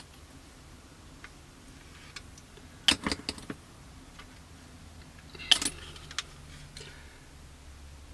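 Small hard clicks and clinks from handling a glass bottle of liquid plastic cement with its brush cap and a plastic kit fuselage: a quick run of clicks about three seconds in and a single sharper clink about five and a half seconds in.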